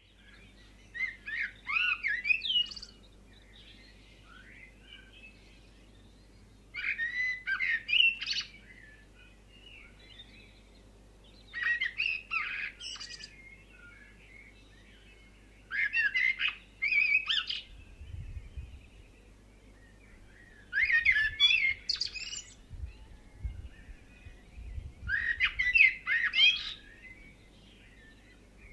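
Songbird song: bright, warbling phrases of about two seconds each, repeated every four to five seconds, with faint chirps in between.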